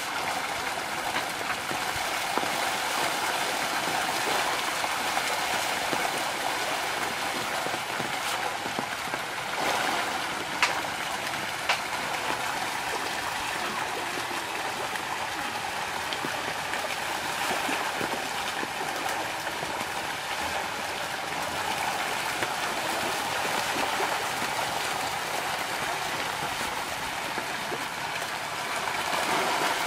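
A dense shoal of pangasius catfish splashing and churning the pond surface in a feeding frenzy, a steady rushing of water. Two sharper slaps come about a third of the way in.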